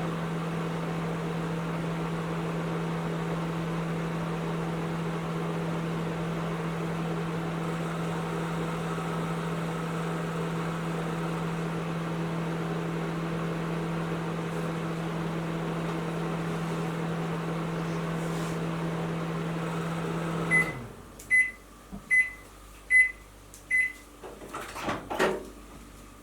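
Panasonic NN-ST45KW 1000-watt inverter microwave oven running with a steady hum, which stops about twenty seconds in when the timed cooking ends. Five high beeps follow, signalling the end of the cycle, then a few clicks and knocks.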